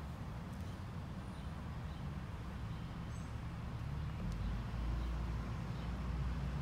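Low, steady background rumble of outdoor ambience, swelling a little about halfway through.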